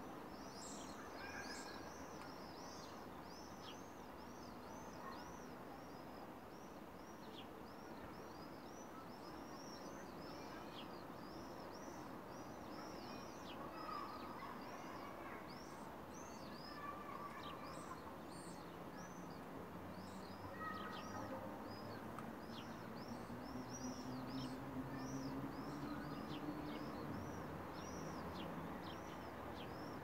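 Many small birds chirping together in a steady stream of short, high chirps. A low hum swells in during the second half.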